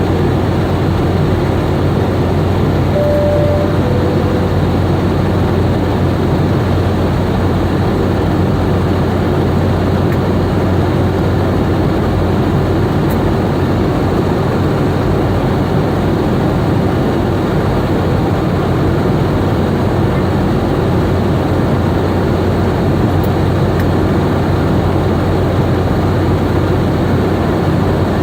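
Steady loud roar of a Boeing 717's rear-mounted Rolls-Royce BR715 turbofans heard inside the passenger cabin, with a constant low hum under it. A brief two-note tone, the second note lower, sounds a few seconds in.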